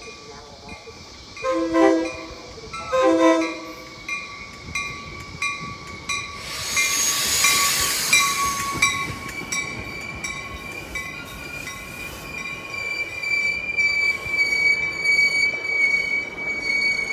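Metra commuter train's horn sounds two short blasts as the train approaches. The bilevel cars then rush past, wheels clicking over the rails, and from about halfway on a steady high-pitched wheel squeal runs on.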